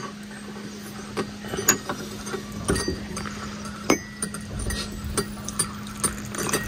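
Cups, plates and cutlery clinking and knocking at a breakfast table: scattered sharp taps, irregularly spaced, over a faint steady hum.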